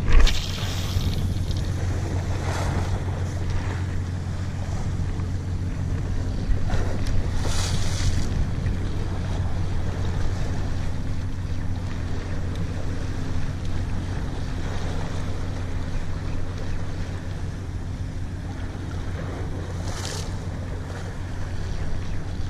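Sea swell washing against a rock ledge, with wind buffeting the microphone: a steady low rumble with a few brief hissing surges of surf. A short bump right at the start.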